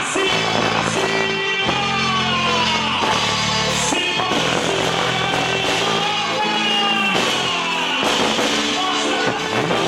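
Festa junina quadrilha music with a singing voice over held bass notes that change every second or two.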